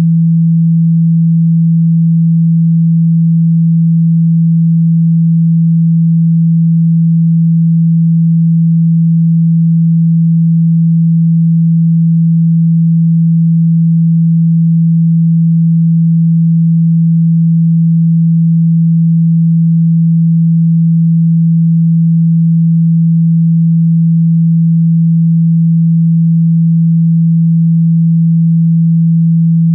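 A steady, loud 165 Hz sine tone, held without change; a low hum played through a phone's speaker to make the cone vibrate and push out trapped water.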